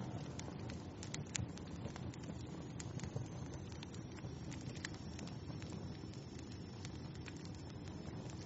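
Wood fire crackling in a fireplace: irregular sharp pops and snaps over a low steady rumble of the flames. A faint thin high tone runs beneath it from about three seconds in.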